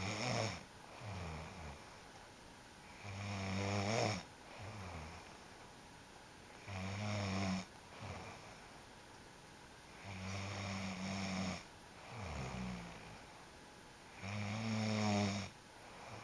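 A sleeping person snoring: a loud, rough snore on each breath in, about every three and a half seconds, each followed by a softer breath out.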